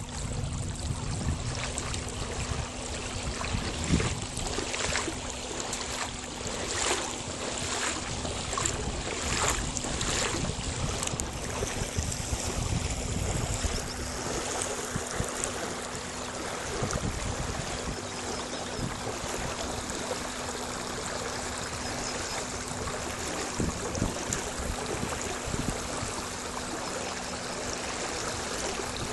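Lake water sloshing and slapping against the hull of a small moving boat, over a steady low hum. Between about 4 and 11 seconds in, a run of regular splashes comes roughly once or twice a second.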